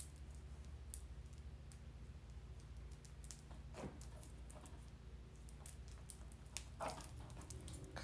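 Faint scattered clicks and small rustles of hands working a needle and thread, tying off thread ends on a mesh wig cap, over a steady low hum of room tone.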